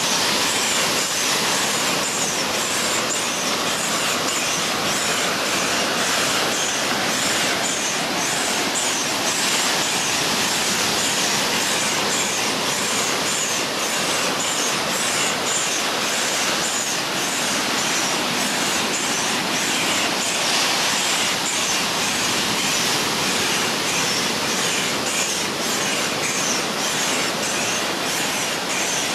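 An air pump running steadily, blowing air through a hose into a vinyl inflatable as it fills, with surf washing on the shore.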